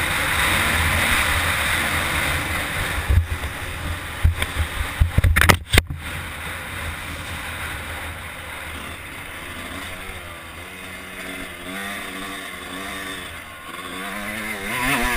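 Dirt bike engine heard through an onboard camera, with heavy wind rush on the microphone at first and a run of sharp knocks about three to six seconds in. In the second half the engine is quieter, its pitch rising and falling with the throttle as the bike slows.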